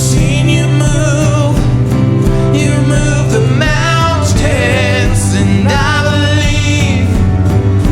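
Worship music: a band playing a steady-beat song with guitar, with a voice singing a wavering melody over it.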